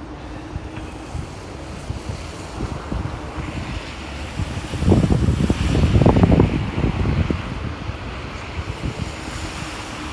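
Blizzard wind buffeting the microphone in a steady low rumble, with a stronger gust about five seconds in that lasts a couple of seconds.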